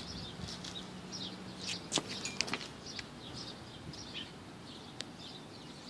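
Small birds chirping, many short high calls scattered throughout, with a few brief sharp clicks.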